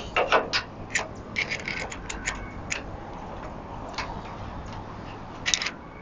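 Light metallic clicks of a wrench working the bolt on the brake arm of a New Departure coaster-brake hub as it is tightened: a quick irregular run over the first three seconds, one more click about four seconds in, and a short cluster near the end.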